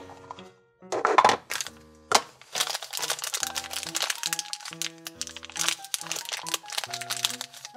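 Tissue paper crinkling and rustling as a small toy figure is unwrapped from it, after a couple of clicks and knocks from the opened plastic egg in the first two seconds. Light background music plays throughout.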